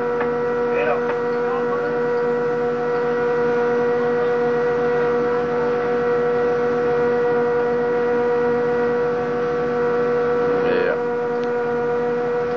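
Ship's machinery running: a loud, steady drone with a strong held whine and several overtones above it.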